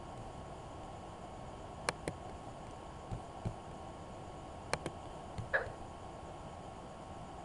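Computer mouse clicks, a quick pair about two seconds in and another few clicks around five seconds, with a short rising blip just after the second set, over a steady low hum of room noise.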